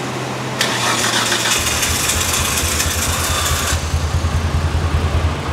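Nissan Skyline R32 GT-R's twin-turbo straight-six being cranked by the starter, turning over in a steady pulsing rhythm without catching. It fails to start, which the owner puts down to a lack of fuel. A hiss sounds over the first few seconds.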